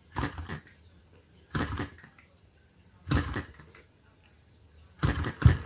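Enjomor hit-and-miss model engine being turned over by hand at its flywheels to get it started, giving a short clattering burst of clicks and knocks four times, about every one and a half seconds.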